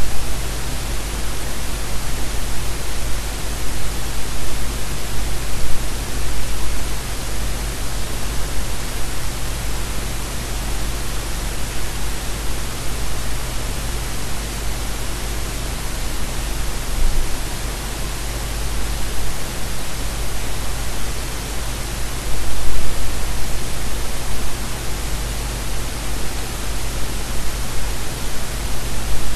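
A steady, even hiss of noise, like pink noise, spread from deep to high pitches, with a low steady rumble underneath; it does not change.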